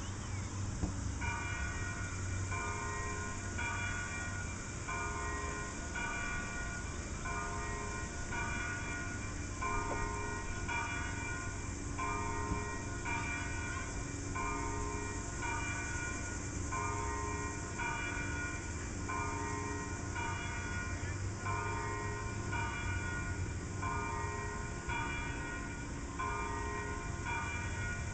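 Bells ringing in a steady rhythm of about one stroke a second, the notes changing in pitch from stroke to stroke, over a low steady hum.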